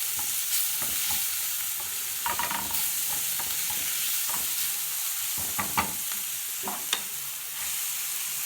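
Grated onion with spices and boiled chicken livers and gizzards sizzling steadily in hot oil in a frying pan, stirred with a spoon that knocks against the pan a few times.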